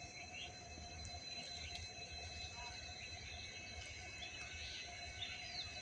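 Faint outdoor ambience: a steady high insect trill over a low rumble, with a few short bird chirps near the end.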